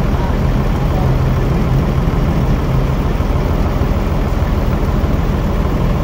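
Forklift engine idling, a loud, steady low hum.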